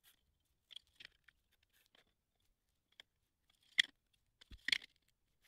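Sparse light clicks and a few short scrapes of a metal square, rule and marker being set down and moved on a steel plate while it is marked out, the loudest just before 4 s and just before 5 s.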